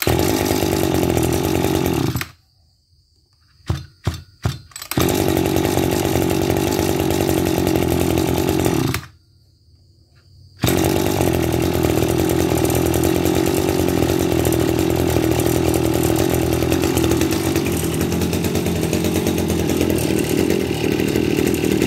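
Maruyama MB260 brush cutter's 26cc two-stroke engine running steadily, then stopping twice and restarting each time. After the first stop a few sharp pops come before it catches and runs again; the second time it fires about a second and a half after stopping and runs on, starting very readily.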